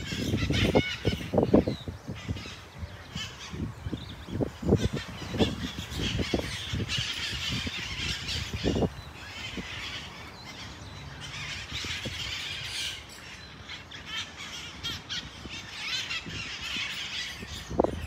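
Red-masked parakeets calling in bouts, on and off. Low thumps and rumbles come with them through the first half, and these are the loudest part.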